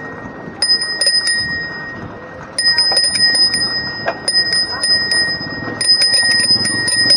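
Handlebar-mounted bicycle bell rung with the thumb lever in quick bursts: a couple of rings about half a second in, rapid rings around three seconds and again around four and a half, and a longer rapid run near the end. It is rung as a warning to people walking in the lane ahead.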